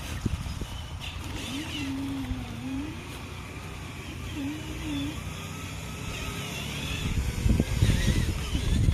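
Small electric motors and gearboxes of radio-controlled construction models whining as they drive, the pitch rising and falling in short arcs, with a louder rough rumble near the end.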